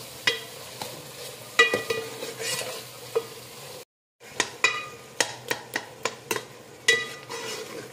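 Chopped onions and tomatoes frying in oil and sizzling in a metal pot as they are stirred, while the tomato water cooks off. Through this come scrapes and sharp clinks of a metal spoon and a steel ladle against the pot, each clink ringing briefly, and more often in the second half. A short silent gap comes a little before the halfway point.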